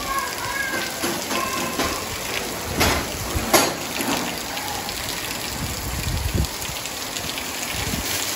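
Heavy monsoon rain falling steadily on a wet street and running off roof edges, an even hiss, with two louder sharp splashes or knocks about three seconds in.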